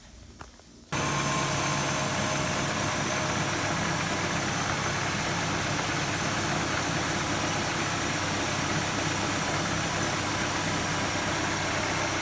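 Mini Cooper Clubman engine idling steadily, coming in abruptly about a second in.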